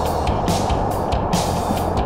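Background music over a steady rushing noise, with short bright bursts every few tenths of a second.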